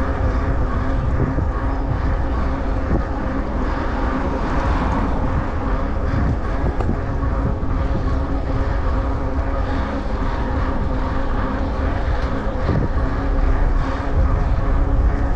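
Wind rumbling on the microphone of a camera on a moving bicycle, with a steady droning hum underneath.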